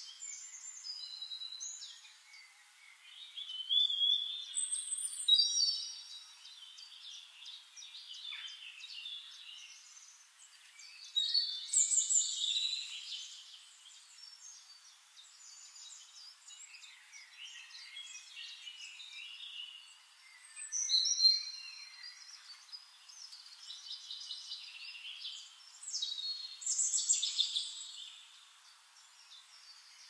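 Several woodland songbirds singing and chirping, with loud song phrases every several seconds and quieter chirps between.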